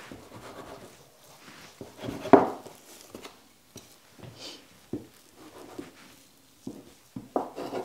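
Metal bench scraper chopping through bread dough and knocking against a wooden tabletop, with the cut pieces being shifted by hand: an uneven string of soft knocks and scrapes, the loudest about two and a half seconds in.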